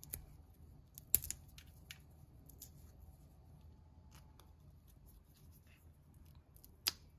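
Chestnut shell crackling and snapping as fingers peel it off the kernel: scattered small clicks, with a sharp snap about a second in and another near the end.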